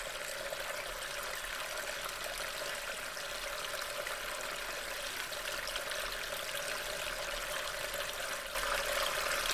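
Steady rushing noise like flowing water, a little louder in the last second and cutting off abruptly at the end.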